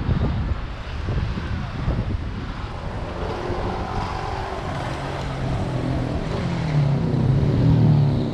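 Wind rumbling on an action camera's microphone while cycling, with a motorcycle engine running close by. The engine's hum grows louder in the second half.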